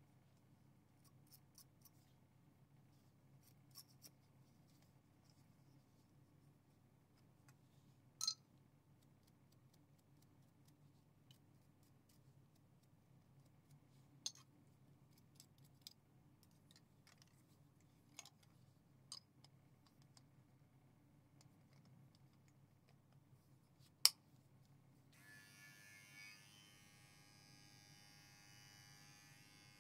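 Near silence broken by a handful of sharp clicks, the loudest about eight seconds in and again near the end. About twenty-five seconds in, an electric hair clipper starts and buzzes steadily to the end.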